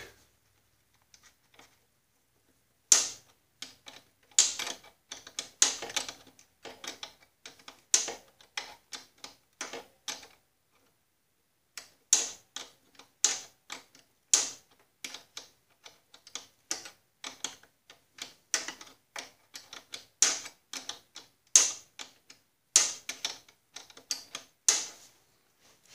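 Metal wrench clicking and clinking on the brake adjusting nut of a garden tractor's transaxle as it is turned in short strokes: a long run of sharp, uneven clicks that starts a few seconds in and pauses briefly about halfway. The nut is being screwed down the adjusting shaft to put more pressure on the brake spring.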